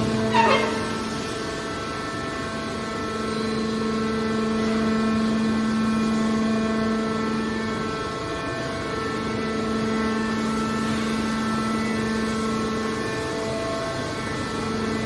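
Hydraulic baler's power unit running with a steady, even hum, with a brief falling squeal right at the start.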